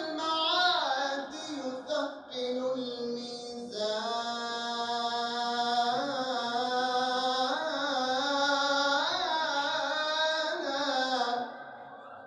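A man's solo voice chanting a religious praise hymn: a few short melodic phrases, then from about four seconds in a long, ornamented held note that wavers in pitch and ends near the close.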